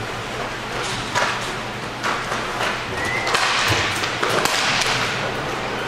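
Inline hockey play: a run of sharp clacks and knocks from sticks, puck and boards.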